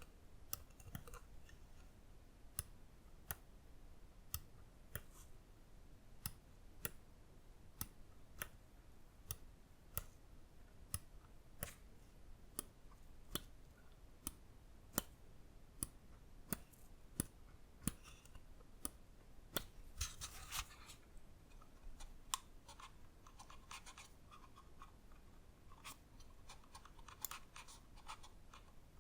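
Lamzu Inca gaming mouse being clicked one press at a time, a crisp single click about every 0.8 s. About twenty seconds in there is a brief scrape, then runs of faint, quick ticks.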